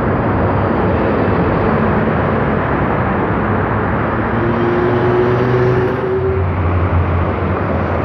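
City buses and cars driving past on a busy avenue: bus engines running as they pass close, over steady traffic noise.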